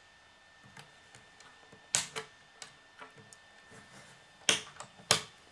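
Plastic K'nex rods and connectors clicking as they are snapped together and set down on a wooden tabletop. There are a few sharp clicks, the loudest about two seconds in and twice near the end, with lighter ticks between.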